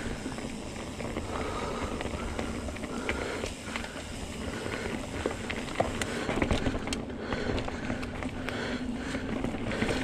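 Mountain bike rolling over a dirt, leaf-strewn trail: steady tyre rumble and wind on the handlebar-mounted microphone, with scattered clicks and rattles from the bike.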